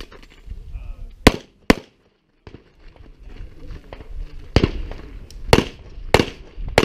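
Pistol shots fired outdoors at a competition stage. There are two quick shots about a second in, then, after a short break, four more at a steady pace of a little under one a second.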